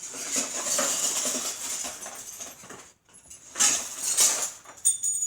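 Rustling and scraping as packaging and a broken picture frame with shattered glass are handled, in uneven bursts of crinkling noise.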